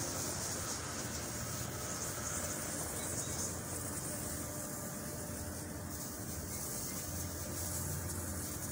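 Steady hum of road traffic with a high hiss, and a car passing close by near the end.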